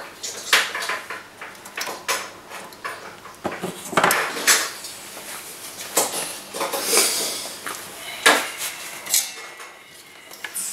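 Irregular sharp metallic clinks and taps of tools and parts being handled on a workbench during soldering work on a circuit board.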